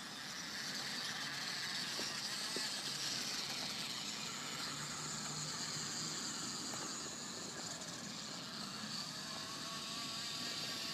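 Radio-controlled car running, a steady high-pitched whirr and rush of noise, with faint tones gliding up and down near the end.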